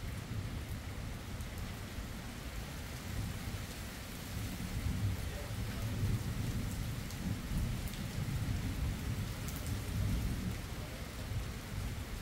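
Steady rain falling during a thunderstorm, with a long, low roll of thunder that swells through the middle and fades near the end.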